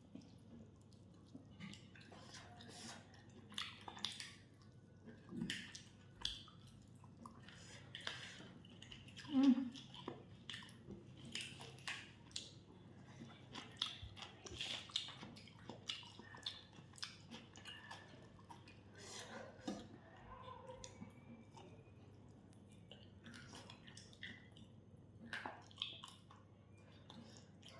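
Close chewing and mouth sounds of people eating fried chicken: irregular soft smacks and clicks.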